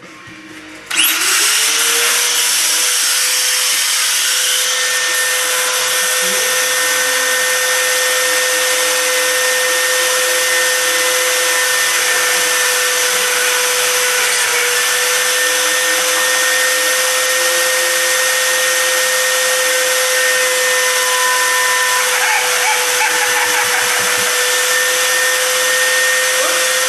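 Rotary tool on a flexible shaft spinning up about a second in and running at a steady whine, boring holes through wine corks so that wire can be threaded through them. It cuts off near the end.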